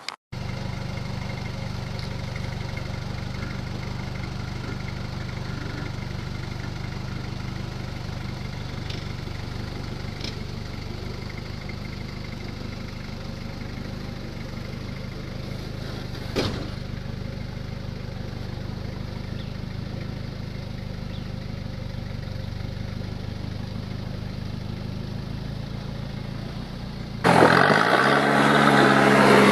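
Toyota Hilux's 3.0 turbo diesel engine running steadily at low revs while crawling over rocks, with a single sharp knock about halfway through. Near the end the engine suddenly sounds much louder and closer.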